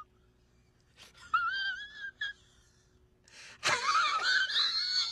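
A man's high, wavering whine, a wordless voiced cry whose pitch wobbles. A short one comes about a second in, then a louder, longer one from about three and a half seconds in that climbs in pitch.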